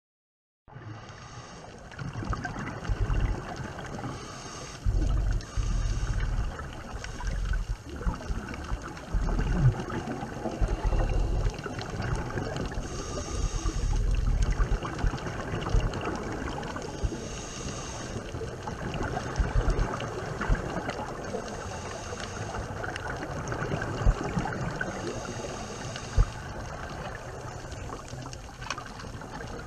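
Underwater sound picked up by a diving camera on a scuba dive: a steady wash of water noise with bursts of exhaled regulator bubbles rumbling out every few seconds. It starts just under a second in.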